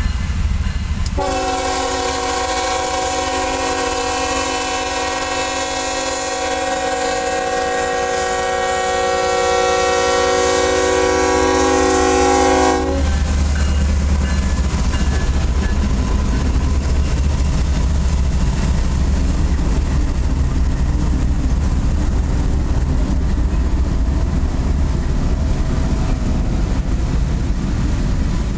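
Freight train's lead diesel locomotive sounding its multi-note chime horn in one long blast of about twelve seconds, starting about a second in and cutting off suddenly. The locomotives then rumble past loudly, followed by the freight cars rolling by on the rails.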